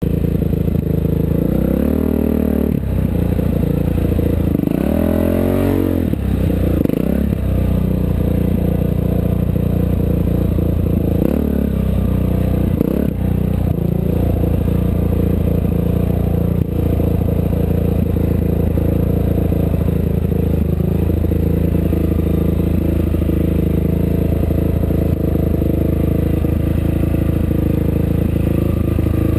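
Off-road race vehicle's engine running hard and continuously. The revs drop and climb again several times in the first dozen seconds, then hold steady.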